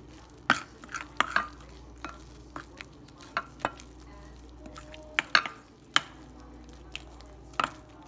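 Metal spoon stirring lumpy pancake batter in a glass mixing bowl, with irregular sharp clinks where the spoon strikes the glass.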